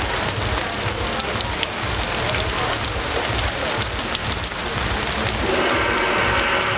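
Steady crackling noise with a low rumble underneath. Music begins about five and a half seconds in.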